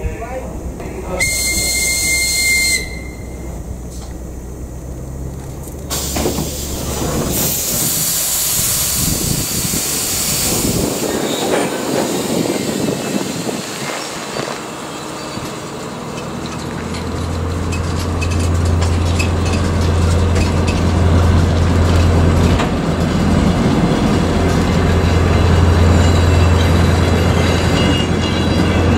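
DR1A diesel multiple unit at a station platform: a short high whistle-like tone about a second in, a loud hiss of air a few seconds later, then the diesel engine's low steady drone growing louder over the last ten seconds as the train moves off.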